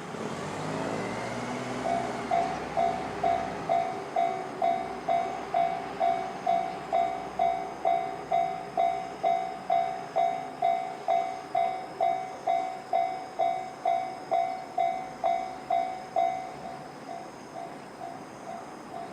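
Japanese level-crossing warning bell, the electronic JR standard tone, ringing at about two strikes a second from about two seconds in; near the end it continues at a much lower volume.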